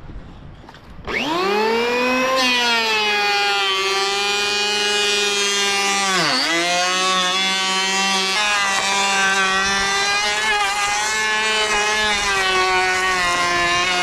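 A power tool's motor starts about a second in, spins up to a steady whine, drops sharply in pitch for a moment around halfway as it takes a load, then recovers and runs on steadily.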